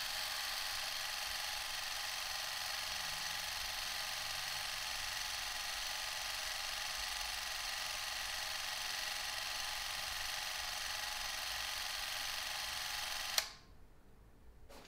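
Vintage cine film camera running, a steady mechanical whir of its motor and film transport. It stops abruptly with a click about a second and a half before the end, as the trigger is released.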